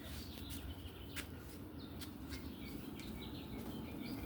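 Small birds chirping in quick, short repeated notes, mostly in the second half, over a steady low background hum.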